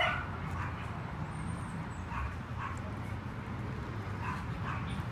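A few faint, short dog barks heard over a steady low rumble.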